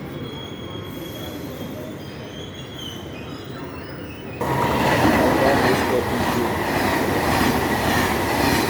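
A train running past the platform: a low rumble, then about four seconds in, loud rail noise cuts in suddenly, with a steady high squeal of the wheels on the rails and a faint regular beat.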